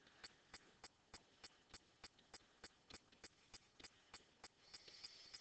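Near silence with faint, evenly spaced ticks, about three a second, and a soft hiss near the end.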